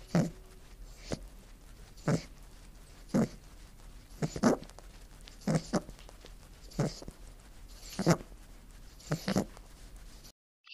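A rabbit grazing, tearing and chewing grass in short crunchy bites about once a second, sometimes two in quick succession.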